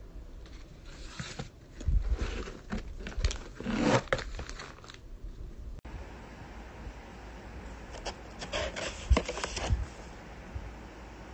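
Sheet-mask sachets being handled and shuffled against each other in a cardboard box: crinkling and scraping with sharp clicks, in two bouts a few seconds apart.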